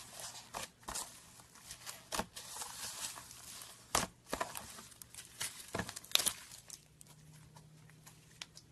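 Slime being mixed and handled by hand: irregular sticky clicks, crackles and crinkly rustling, which thin out after about six and a half seconds.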